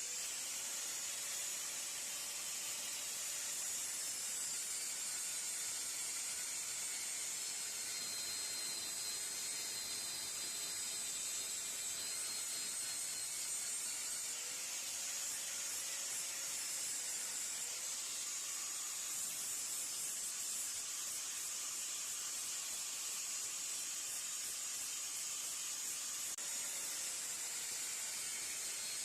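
Bench-mounted abrasive power tool grinding the metal of an old multitool. It makes a steady high hiss, and a faint motor tone rises and falls a few times.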